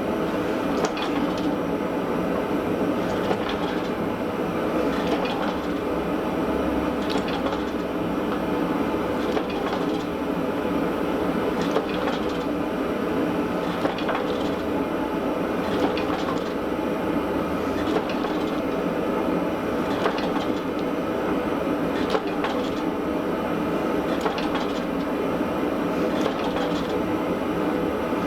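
A steady mechanical running noise with a faint sharp tick about every two seconds.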